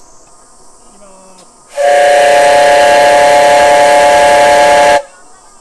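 Steam whistle of a live-steam miniature C58 locomotive: one loud, steady blast about three seconds long that starts and stops abruptly, about two seconds in.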